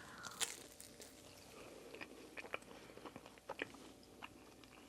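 A person chewing a chicken nugget dipped in garlic sauce: faint, close-up mouth sounds with scattered short clicks.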